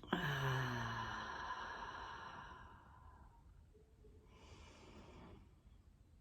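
A person's long, deep exhale with a sigh-like voiced start, fading out over about three seconds, then a quieter breath about four seconds in: slow deep breathing as a relaxation exercise.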